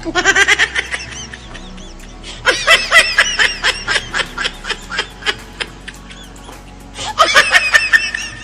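Laughter in three bursts of rapid ha-ha-ha syllables, the longest in the middle, over background music.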